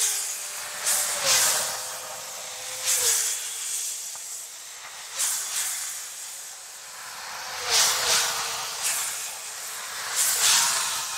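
Road traffic passing on a dual carriageway, sped up four times: a run of short, high hissing whooshes, about nine of them, one every second or so as each vehicle goes by.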